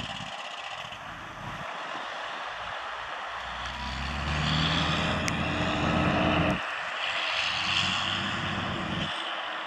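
Western Star 6900XD heavy truck's CAT C15 diesel engine pulling away under power. The rumble builds for several seconds, then drops off sharply about six and a half seconds in, picks up again, and drops once more near the end.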